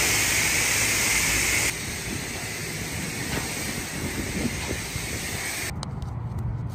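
Self-service car wash high-pressure wand spraying water onto a car body: a loud, steady hiss for about two seconds, then a softer spray hiss. About six seconds in it cuts off abruptly to a low outdoor rumble.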